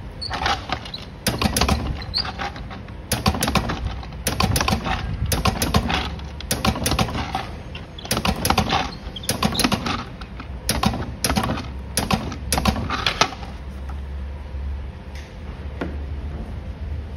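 Battery spot welder firing over and over as a nickel strip is welded onto the cylindrical cells of a lithium-ion pack: bunches of sharp clicks and snaps roughly every second. The welding stops about 13 seconds in, leaving a low hum.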